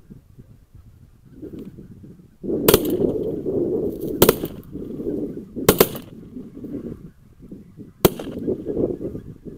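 Shotgun volley: five shots over about five and a half seconds, the third and fourth close together, starting about two and a half seconds in. Under them a flock of geese honking.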